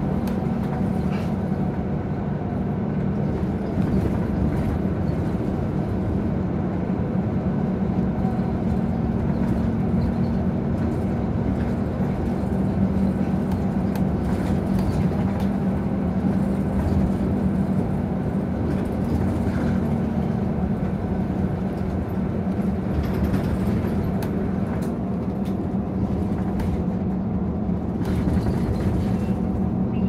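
Nissan Diesel ADG-RA273MAN city bus on the move, heard from inside the cabin: its diesel engine and running gear make a steady low hum that holds level throughout.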